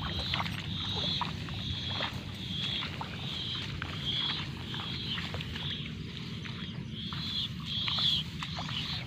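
A short, high chirping call repeated about one and a half times a second, pausing briefly past the middle, over a steady low hum with scattered clicks.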